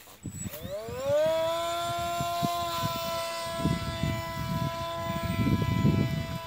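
Electric RC plane's brushless motor (2208, 1800 kV, 3S) driving a 7-inch propeller: about half a second in it spools up with a steeply rising whine, then holds a steady high-pitched whine with many overtones. Bursts of low rumble come and go in the second half.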